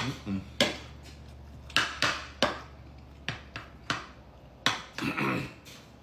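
Metal spoon clinking and scraping against a ceramic bowl while scooping up rice and curry: about nine sharp clicks at irregular intervals.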